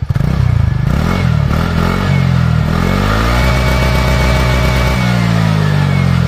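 TVS Ntorq 125 scooter's single-cylinder engine revved up from idle: it climbs quickly, drops back, then climbs again and holds a high rev for about a second and a half before falling away near the end.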